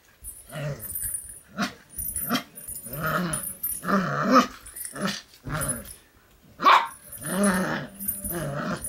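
English Cocker Spaniel puppy growling in play while tugging on a rope toy. It gives two longer growling bouts, with short sharp yaps between them; the loudest yap comes near the end.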